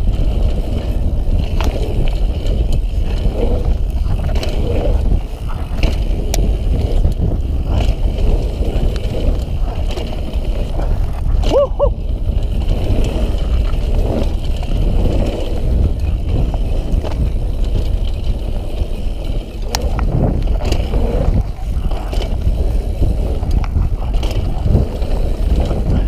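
Mountain bike ridden fast down a dirt forest trail: a steady low rush of wind on the camera microphone and tyre rumble, with frequent sharp knocks and rattles from the bike over bumps, and a brief squeak about twelve seconds in.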